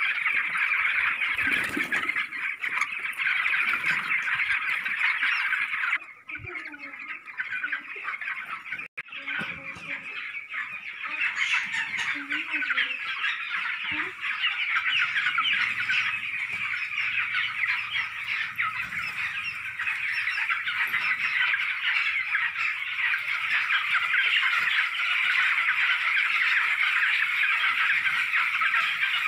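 A large flock of young broiler chickens cheeping together in a dense, continuous high-pitched chorus. It drops a little about six seconds in and builds back up a few seconds later.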